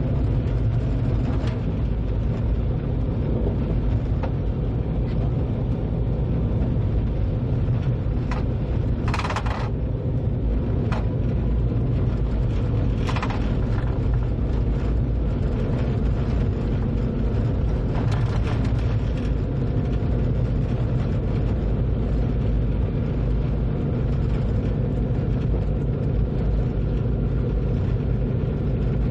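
Train running along the track, heard from the driver's cab: a steady low rumble with a constant hum. Several short, sharp clicks and knocks come between about a third and two-thirds of the way through.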